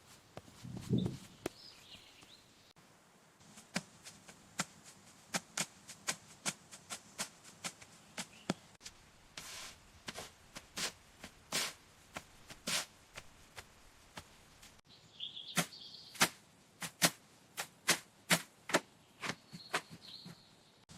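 A series of short, sharp clicks or taps, irregular at about one to two a second, with a low thump about a second in and a few faint high chirps.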